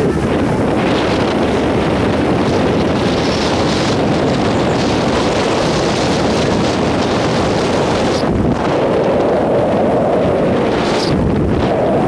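Wind buffeting the microphone, a loud, steady rush of noise.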